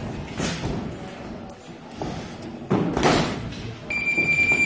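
Boxing gloves landing with dull thuds during sparring, the heaviest around three seconds in. Near the end a gym round timer starts a steady high-pitched beep.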